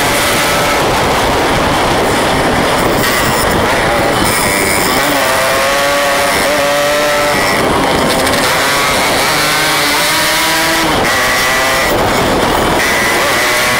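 Two-stroke Yamaha RX King motorcycles running at riding speed, their engine notes rising and falling in pitch as they rev through the bends, over a steady rush of noise.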